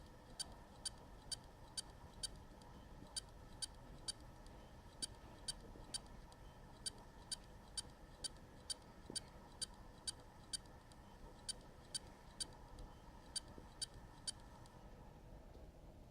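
Faulty WD Green hard drive beeping: short, high beeps about two a second, now and then skipping a beat, over a faint steady whine from the spinning drive. Near the end the beeping and the whine both stop. The drive beeps like this when it has spun up but is not detected by the computer.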